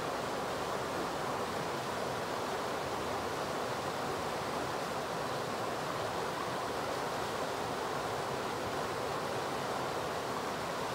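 River water rushing steadily over a shallow, rocky riffle, an even, unbroken rush with no single splashes standing out.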